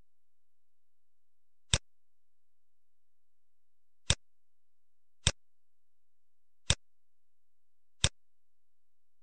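Computer mouse clicking: five single sharp clicks, a second or two apart.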